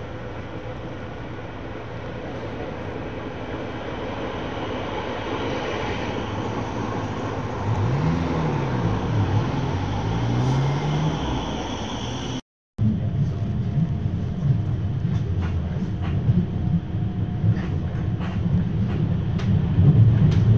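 A Rheinbahn light-rail train pulling in alongside the platform, growing louder as it comes; partway through its motor whine slides up and down in pitch. After a cut, the steady low rumble of riding inside the moving car, with scattered clicks and rattles.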